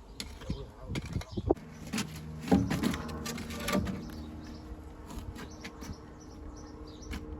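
Scattered knocks and clicks of stones and masonry tools being handled as wall stones are laid, loudest a few seconds in, over a low steady buzzing hum that sets in about a second and a half in.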